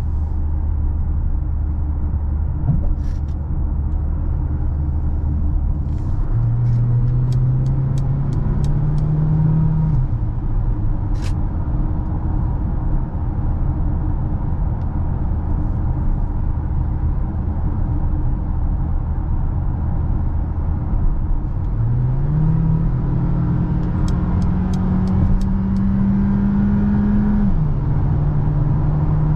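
Mercedes-Benz GLA's 1.3-litre turbocharged four-cylinder engine running on the move: a steady low drone. About six seconds in it climbs in pitch under acceleration and drops back near ten seconds. It pulls up again from about twenty-two seconds until a gear change near the end. Two short runs of light, evenly spaced ticks come through, around seven and twenty-four seconds in.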